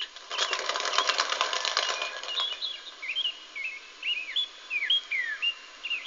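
Wild turkey wings flapping in a rapid burst for about two seconds, then small birds chirping in short rising and falling calls.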